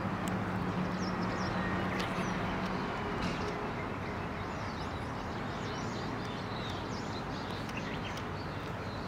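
Outdoor ambience of small birds chirping again and again, over a steady low hum that fades out about three seconds in.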